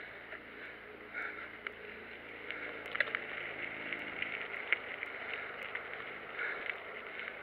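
Mountain bike rolling over a gravel trail: tyres crunching on loose stones while the bike's parts rattle steadily, with a few sharp knocks over bumps, the loudest about three seconds in and again near five.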